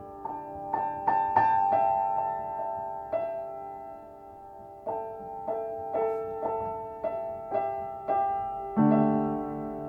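Solo piano tuned to C=528 Hz playing a slow melody of single struck notes that ring on and fade, with a quick run of notes about a second in and a louder, fuller low chord near the end.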